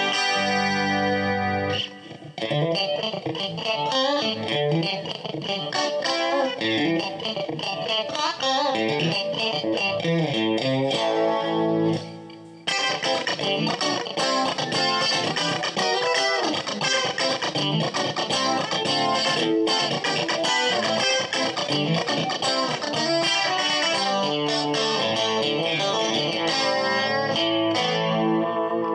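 1985 Matsumoku-made Westone electric guitar played with a clean tone through a Camil audio cable: a continuous run of picked notes and chords, with short breaks about two and twelve seconds in.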